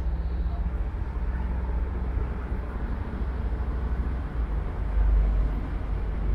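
Wind buffeting the camera microphone outdoors: a low, uneven rumble that swells about five seconds in.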